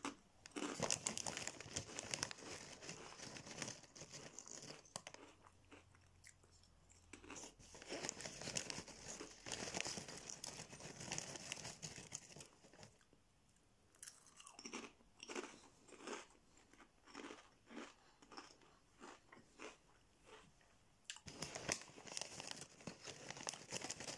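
Crunchchips roasted spare rib flavour crisps being bitten and chewed close to the microphone, with crisp, crackly crunching. Dense crunching runs through the first half, eases into slower, separate crunches, and turns dense again near the end.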